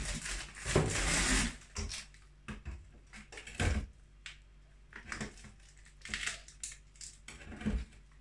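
Frozen ice packs in plastic bags being handled and pressed against a steel pot in a sink of cold water: an uneven run of crinkling, crunching and knocks, longest about a second in.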